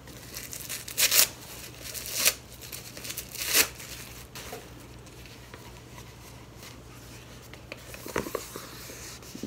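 Paper wrapping being torn and crinkled as a rolled package is unwrapped: three short, louder rips about one, two and three and a half seconds in, then quieter rustling.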